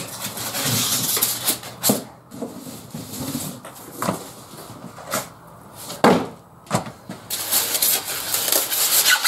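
Cardboard box and packing being handled while a scroll saw is unpacked: rustling and scraping of cardboard, with several sharp knocks and bumps.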